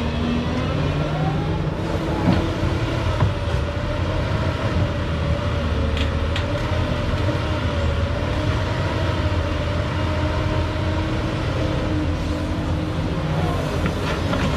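Doosan excavator's diesel engine running steadily under working load, its pitch drifting a little. A few short, sharp knocks sound over it in the first half.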